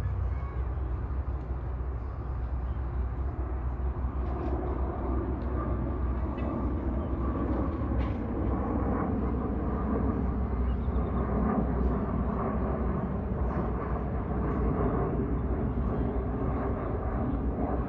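Jet aircraft engines rumbling overhead, the noise growing louder about four seconds in and holding steady.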